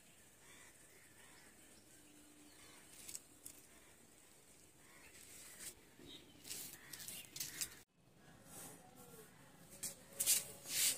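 Quiet outdoor ambience broken by several short rustling noises, the loudest near the end, with a brief dropout about eight seconds in.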